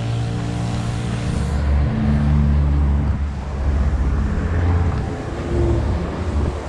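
A motor vehicle's engine running close by, a low hum that shifts in pitch as it changes speed.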